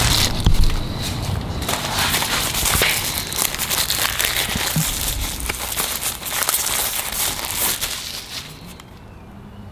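Thin plastic bag crinkling as it is pulled open and peeled off by hand, a dense run of crackles that dies down about eight seconds in.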